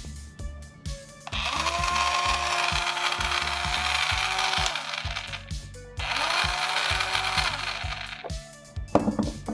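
A toy kitchen appliance's electronic motor-whir sound effect, played twice for a few seconds each time, over background music.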